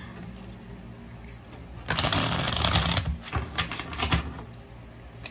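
Deck of tarot cards being shuffled by hand: after a quiet start, a rapid flutter of cards lasting about a second, followed by a few sharp clicks as the cards knock together.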